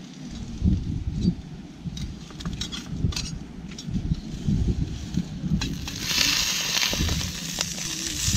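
Campfire cooking: a few light clicks and knocks of utensils on the pans over a gusty low rumble of wind on the microphone. About six seconds in, food starts sizzling steadily in the frying pan over the fire.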